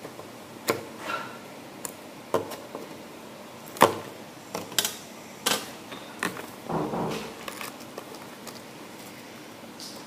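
A Beyblade top and its packaging being handled during unboxing: a series of irregular sharp clicks and knocks, with a short rustle about seven seconds in.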